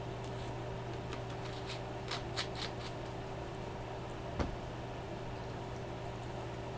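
Steady hum and hiss of the room, with a run of light clicks and crinkles from hands handling food and plastic packaging, then one sharper knock about four seconds in.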